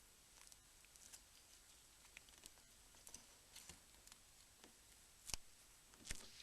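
Faint, scattered small clicks and light scratches from working on the disassembled Nokia E65's small parts, with two sharper clicks near the end.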